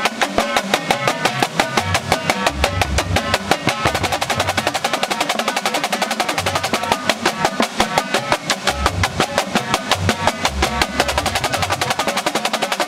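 Marching drumline of snare drums, tenor drums and bass drums playing a fast, tightly rhythmic rudimental piece. Dense, even sticking runs throughout, and the bass drums come in with low notes about two seconds in and again after about eight seconds.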